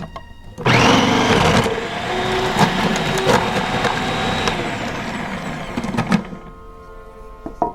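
Food processor motor running for about five seconds, chopping raw purple carrots for the filling. It starts with a loud burst of chopping and settles into a steady whine before cutting off.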